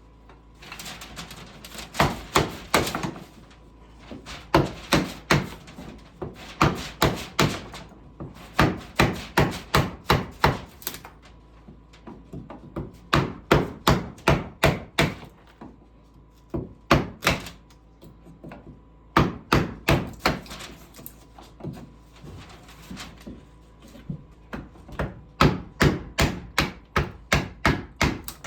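Hammer blows on wood, about three or four a second, in runs of several strikes with short pauses between them.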